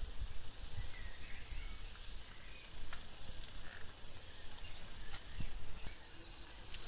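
Chicken and sausage sizzling faintly on a wire grill over hot charcoal, a steady hiss broken by a few sharp crackles from the coals, over a low uneven rumble.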